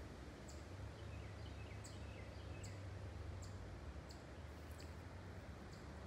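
Quiet woodland ambience: a short, high chirp repeating evenly about once every three-quarters of a second, a brief faint twitter of a bird a second or two in, over a low steady rumble.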